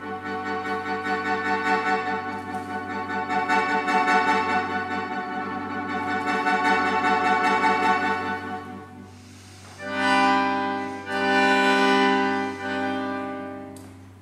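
Accordion playing a long held chord with a fast, even pulsing. After a brief drop, three separate sustained chords follow near the end, the last fading away.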